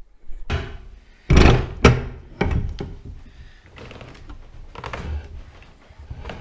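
Clunks and scrapes of a hand-lever tube-bending jig as a metal canopy-frame tube is bent around its curved former. The loudest knocks come together about a second and a half in, followed by lighter knocks.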